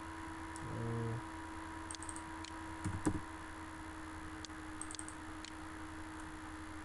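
A few faint computer mouse and keyboard clicks over a steady low electrical hum, with a soft knock about three seconds in and a short low tone about a second in.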